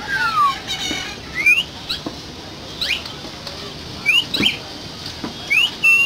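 Common myna whistling: a series of sharp whistles, some sliding down and most sweeping upward, about one a second, mixed with short clicks.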